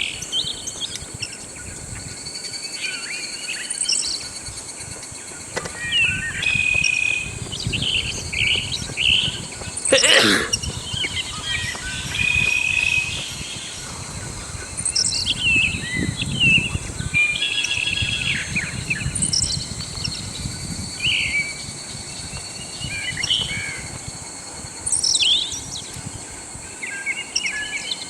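Several birds chirping and trilling in short, varied calls over a steady high-pitched insect drone. One loud rising call sweeps up about ten seconds in.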